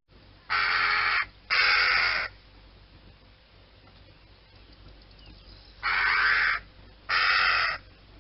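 Crow cawing: four long, harsh caws in two pairs, the first pair in the opening two seconds and the second pair from about six seconds in.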